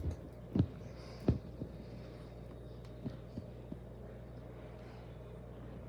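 A steady low hum with two sharp knocks in the first second and a half and a few lighter taps about three seconds in.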